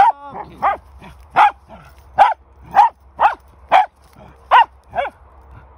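A dog barking over and over in excitement while playing with other dogs: about nine sharp barks, roughly two a second, with a short whine just after the first.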